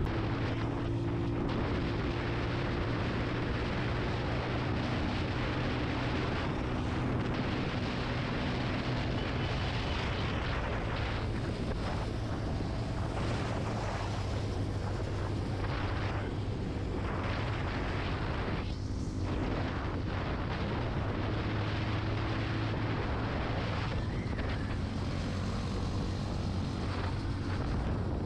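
Benelli TNT 25's single-cylinder 250 cc engine running at a steady cruise while riding, with a constant rush of wind over the microphone.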